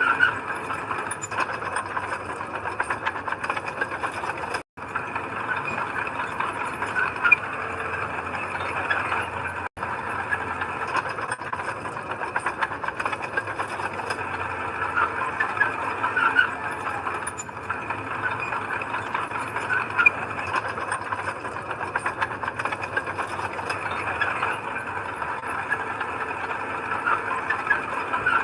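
Heavy earthmoving machinery running steadily, with engine noise and a continuous metallic clatter and squeaking. The sound drops out for an instant twice, about five and ten seconds in.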